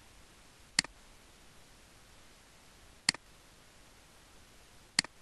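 Computer mouse clicked three times, about two seconds apart, each a sharp press followed by a quieter release, over faint steady hiss.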